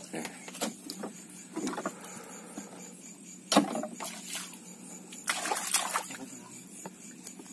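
Handling noises aboard a small fishing boat: scattered knocks, the loudest a sharp knock about halfway through, and a short rustling rush a little later.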